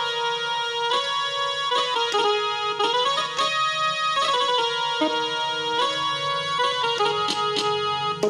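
Casio mini keyboard playing a melody of held notes, one after another without pause.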